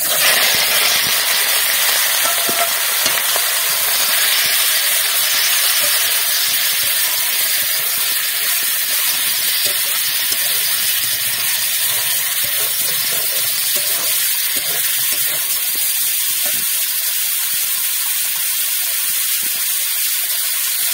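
Raw chicken pieces frying in hot oil in a metal kadai: a loud sizzle that starts suddenly as the meat goes in and then holds steady, with a metal spatula stirring and scraping the pieces.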